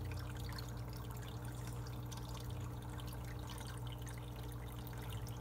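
Aquarium water trickling and splashing steadily, as from a filter's return flow into the tank, over a steady low hum.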